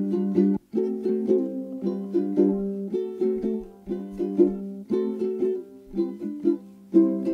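Background music of plucked, strummed string notes in a steady rhythm, with a brief break a little under a second in.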